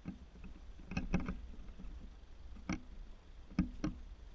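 Pickup truck crawling slowly over a rutted dirt trail: a steady low engine rumble with a few short knocks and clunks, the loudest about a second in and again near three and a half seconds.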